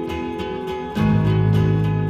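Background music led by a plucked or strummed guitar, with a deeper, louder low note coming in about a second in.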